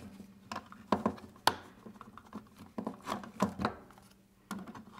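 Press-fit plastic wheels being pushed onto the output shafts of small plastic gearmotors on a plastic robot chassis: irregular clicks and knocks of plastic parts being handled on a wooden table.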